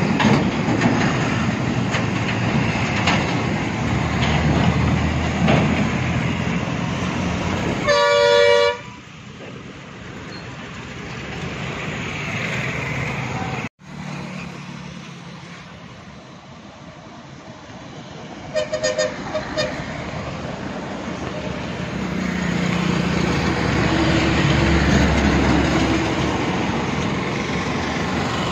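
Heavy diesel trucks and buses passing on a highway, their engines and tyres running loud. A vehicle horn gives one long blast about eight seconds in and a quick series of short toots around nineteen seconds; near the end the engine noise of approaching buses builds up again.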